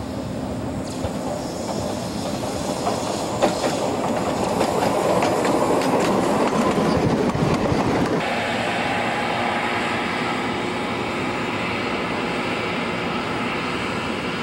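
Tandy Center Subway car running on surface rails and drawing near, growing louder, with its wheels clicking over the rail joints. About eight seconds in the sound changes abruptly to a steadier, slightly quieter rail rumble.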